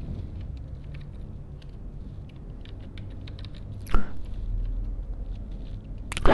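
Computer keyboard typing: scattered light keystrokes over a low steady hum, with one louder click about four seconds in.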